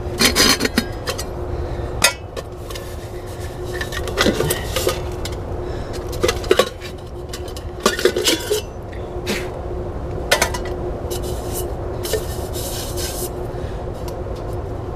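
Stainless steel cooking pots clinking, knocking and scraping against each other as they are handled and unpacked from a cook kit, in irregular clatters.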